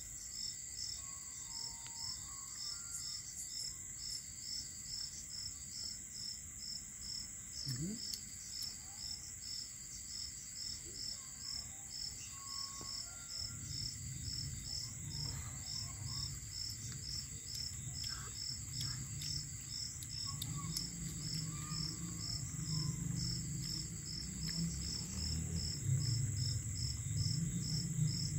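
Crickets chirping: a steady high trill with an even pulse of chirps about three times a second over it. A low hum comes in about halfway and grows louder towards the end.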